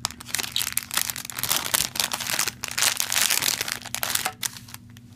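Cable packaging being worked open by hand, crinkling and crackling irregularly with many sharp clicks.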